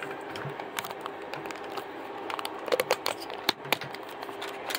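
Phone handling noise as the phone is fumbled and repositioned: a run of small clicks, taps and rustles from fingers on the phone's body near its microphone.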